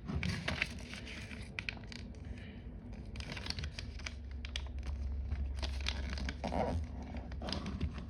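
Sheet of paper being handled and folded: irregular rustling, crinkling and the scrape of fingers pressing creases, over a steady low hum.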